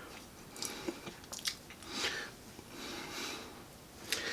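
Crunching and chewing a tortilla chip loaded with dip: about four crisp crunches in the first second and a half, then softer, moister chewing.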